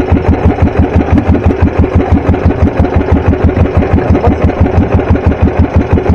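Small fishing boat's engine running at a steady, low speed: a loud, even chugging of about six beats a second.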